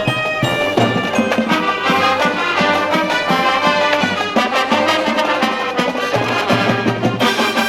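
High-school marching band playing live: brass ensemble of trumpets and trombones carrying a melody over a steady beat.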